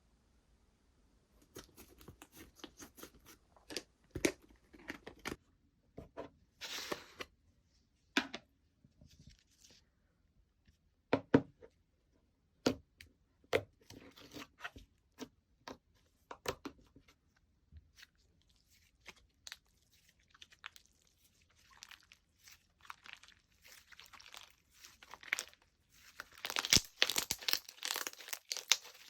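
Slime being squished, pressed and stretched by hand, giving scattered sharp pops and clicks, with a denser run of crackling near the end.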